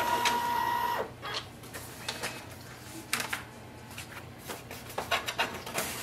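Brother MFC-J4535DW inkjet all-in-one's document-feeder scan mechanism: a steady motor whine that cuts off about a second in as the scan ends. It is followed by scattered clicks and knocks of the mechanism and the paper.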